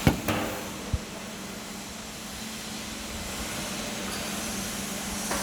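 Packaging machinery running with a steady hum, with a sharp knock at the start and a short low thump about a second in.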